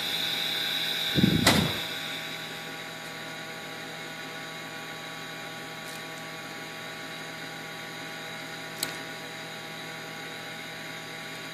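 Steady electrical hum from an industrial machine. A thump comes about a second and a half in, and a single sharp click comes near the end.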